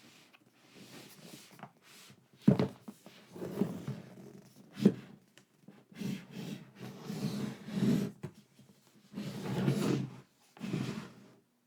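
Unboxing noise: packaging and merchandise handled and rubbed in irregular bouts, with two sharp knocks a couple of seconds apart early on.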